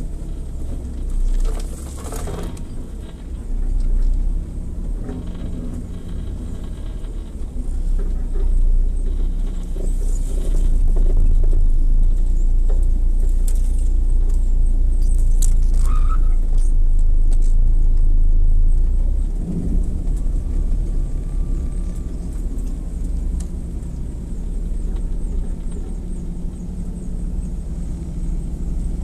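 An off-road 4x4 driving on a trail: a steady low engine and drivetrain rumble with scattered rattles and knocks. It gets louder about a third of the way in and eases off again about two-thirds of the way through.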